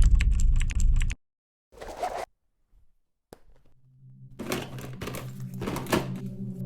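Rapid clicking, like fast typing, over a low rumble for about the first second. A few knocks follow from about four seconds in, then background music with held tones starts near the end.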